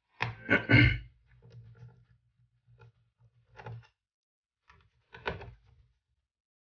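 A screwdriver undoing the screws of a laptop's bottom access cover, with handling knocks and clatter loudest in the first second, then scattered light clicks and taps.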